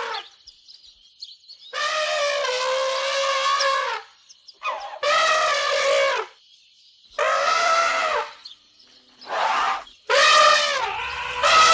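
Elephant trumpeting: a run of about six loud, brassy calls, the first about two seconds long and the rest shorter, with brief gaps between them.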